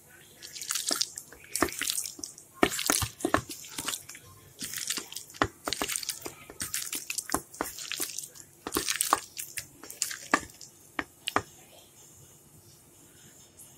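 Wet, irregular sounds of a hand mixing yogurt-marinated chicken pieces and raw onion chunks in a stainless steel bowl, with sharp clicks among them. The mixing stops about 11 seconds in.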